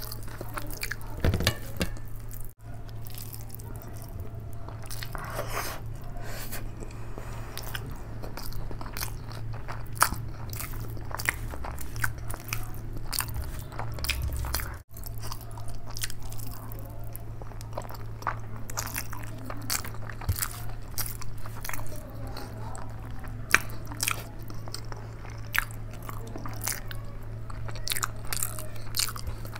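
Close-miked eating: chewing and mouth smacks on mouthfuls of rice mixed with curry, with the squish of fingers mixing rice on a steel plate, over a steady low hum. The sound cuts out briefly twice.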